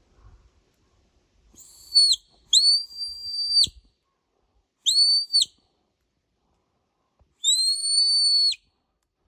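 Handler's whistle commands to a herding sheepdog: four high, steady whistle blasts. The first and third are short and the second and fourth longer, and the last rises slightly into its note.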